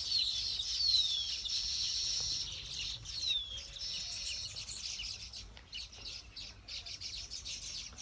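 A colony of baya weavers chattering: many overlapping high chirps, with a few clear falling whistles near the start and about three seconds in.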